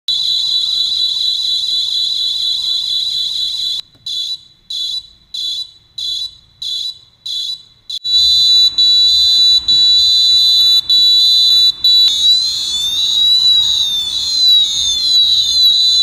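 Arduino-driven piezo buzzer playing a run of electronic siren patterns. First comes a steady high tone, then about four seconds in it changes to short beeps about one and a half a second. Around eight seconds in it becomes a busier tone with brief breaks, and around twelve seconds in a tone wailing up and down.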